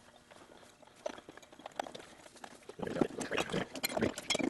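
Irregular clicks and knocks of tools and parts being handled during reassembly work, sparse at first and busier and louder from about three seconds in.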